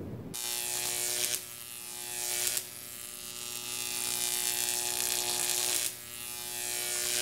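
A steady buzzing drone with a fixed pitch. It swells louder and drops back abruptly three times.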